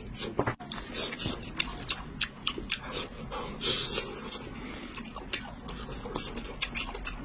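A person chewing and crunching crispy fried chicken close to the microphone: irregular sharp crackles over wet mouth sounds, several per second.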